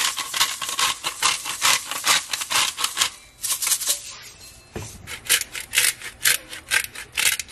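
Hand-twisted salt grinder, then pepper grinder, grinding into a slow cooker in quick repeated rasping strokes, several a second. The grinding pauses about three seconds in, a light knock comes as the grinders are switched, and the pepper grinder starts at about five seconds.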